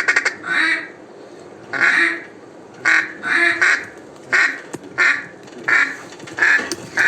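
Mallard duck call blown in a series of loud, drawn-out hen quacks, about one every half second to a second, with a quick run of short notes at the very start: calling to ducks that are working toward the decoys.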